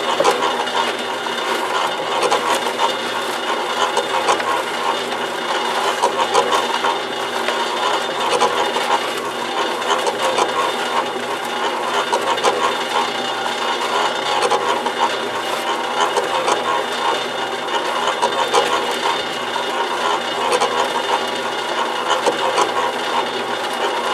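Kushlan electric cement mixer converted to a compost sifter, running steadily: the motor hums as it turns a wire-mesh screen drum, and compost tumbles and rattles inside the drum.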